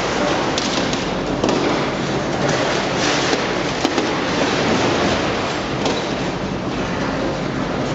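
Heavy machinery running with a continuous clattering and grinding noise, broken by scattered small knocks.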